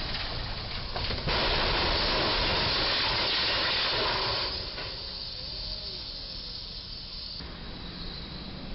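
Box truck's body hitting the low bridge's overhead beam: a sudden loud scraping and grinding starts about a second in and lasts about three seconds as the box is torn open, then drops back to quieter traffic noise.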